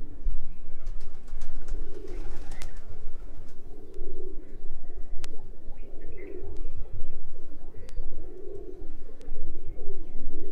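Domestic pigeons cooing, low rolling coos repeating about every two seconds.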